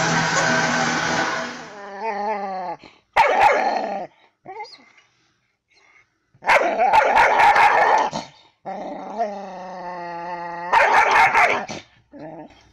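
A German Shepherd-type dog growling, whining and growl-barking at its own reflection in a mirror, which it takes for another dog. There are three harsh outbursts, with a drawn-out whine held for under two seconds between the last two. A steady noise fills the first second and a half.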